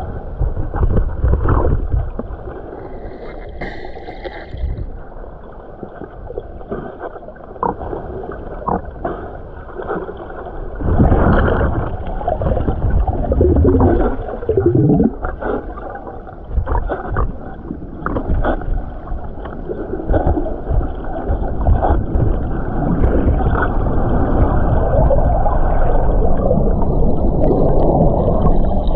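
Muffled churning and gurgling of river water, with irregular knocks and splashes. It surges loudly about eleven seconds in and swells again near the end.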